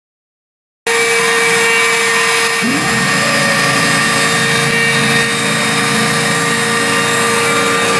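Home-built CNC machine running, its power-tool spindle giving a loud, steady whine. The sound cuts in abruptly about a second in, and a short rising tone rises above it about a second and a half later.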